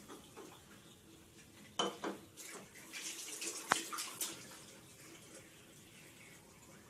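Bathroom sink tap running into the basin, with a few sharp clicks and knocks of a toothbrush and toothpaste tube being handled at the sink, the loudest a little after halfway.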